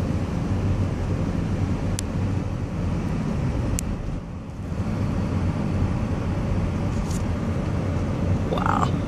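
Car driving along a winding highway, heard from inside the cabin: a steady low engine and tyre rumble with a few faint ticks.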